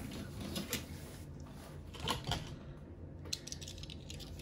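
Faint handling noise of die-cast toy cars being picked through: a few small clicks and rustles over a low steady room hum.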